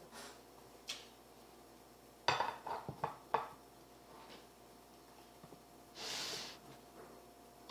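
Spoon and dishes clinking and knocking during a meal: a single click about a second in, then a quick run of sharp clinks between two and three and a half seconds in. A short breathy hiss comes about six seconds in.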